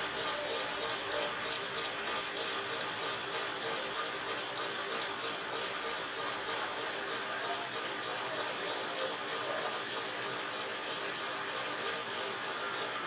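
A machine running steadily, an even noise with a constant hum in it.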